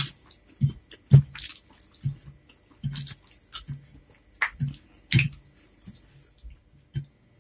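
Close-miked eating of fried instant noodles: wet chewing and slurping mouth sounds, with chopsticks clicking and scraping against the plate, about one short sound every half second to a second.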